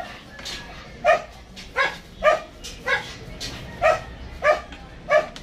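A dog barking over and over in short, evenly spaced barks, about three barks every two seconds.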